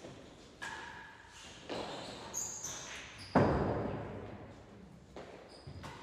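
Solid real tennis balls knocking off rackets, the floor and the court walls, about six knocks, each ringing and echoing in the large court. The loudest comes about halfway through and dies away slowly.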